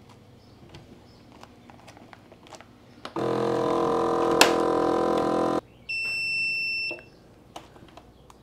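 Countertop vacuum sealer at work: after a few faint handling clicks, its pump starts about three seconds in and hums steadily for a couple of seconds as it draws the air out of the bag, then stops. A moment later it gives one high beep about a second long, signalling that the bag is sealed.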